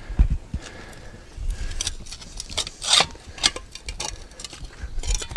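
Steel spade blade scraping and clinking against paver stones and digging into mulch and soil as a glued ring of pavers is pried up out of the ground. There are a few low thumps near the start and a louder scrape about three seconds in.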